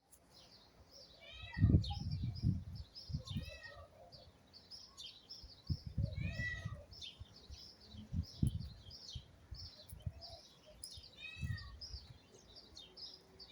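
Birds chirping steadily in high, quick notes, with a short meow-like call heard four times a few seconds apart. Low rumbles come and go, loudest about a second and a half in.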